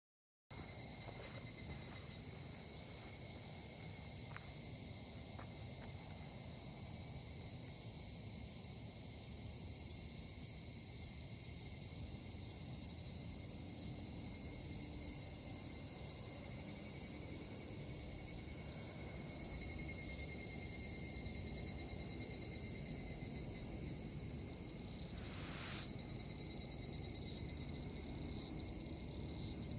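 A dense chorus of insects calling, a steady high-pitched shrill that runs on without a break and swells slightly a few seconds in and again near the end.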